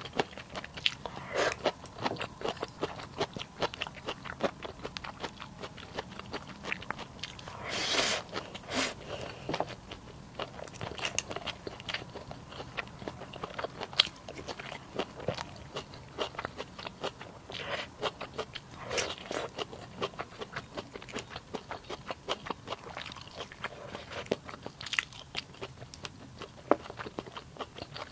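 A person eating close to the microphone: steady chewing and biting with many small wet mouth clicks. There are louder bites or slurps about 8 seconds in, again near 19 seconds, and around 25 seconds.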